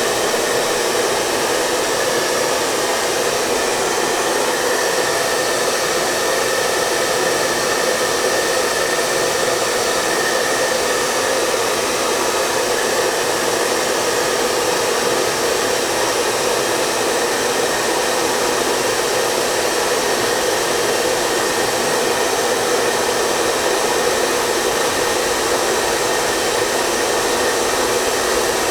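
Hair dryer running continuously: an even rush of air and motor noise, unchanging, with a faint steady tone in it.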